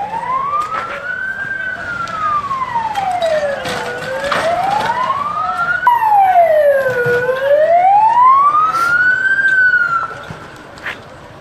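Fire engine siren wailing, in slow rising and falling sweeps that take about five seconds each. It breaks off and starts again louder about halfway through, then fades near the end.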